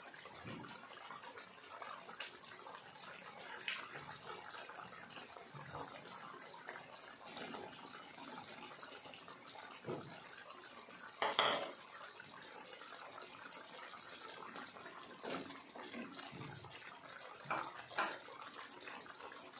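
Chicken curry cooking in a pan, a steady bubbling hiss, broken by a few short knocks, the loudest about eleven seconds in and two more near the end.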